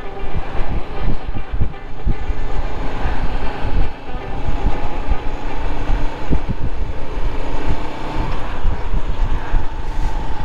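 Motorcycle riding at road speed: a steady engine hum under heavy, gusty wind buffeting on the microphone.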